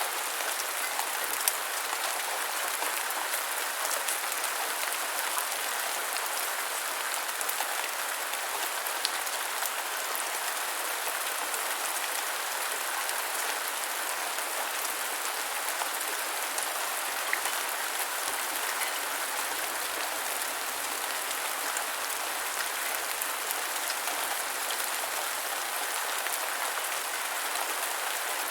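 Steady rain falling on the ground, an even hiss of many drops with a few louder single drop hits scattered through it.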